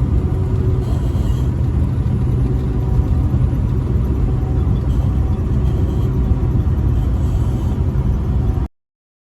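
Truck driving on the highway: a steady, heavy low rumble of engine and road noise that cuts off suddenly near the end.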